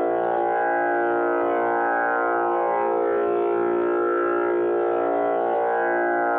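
Tanpura drone tuned to A#: a steady, unbroken tone rich in overtones that swell and sweep in slow waves of shimmer.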